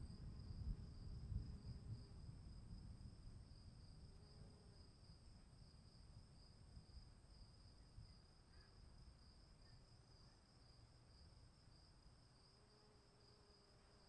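Crickets trilling steadily while a low rumble of distant thunder dies away over the first several seconds, leaving the faint insect chorus.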